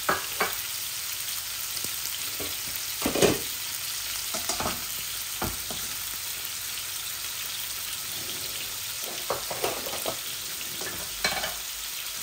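Steady high sizzle of hot oil, with rohu fish steaks frying in one pan and freshly added chopped onions frying in another. Occasional clinks and knocks of cookware come through the sizzle, the loudest about three seconds in.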